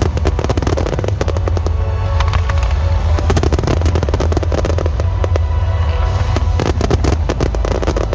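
Fireworks display going off in rapid bangs and crackles over loud music with a heavy bass beat.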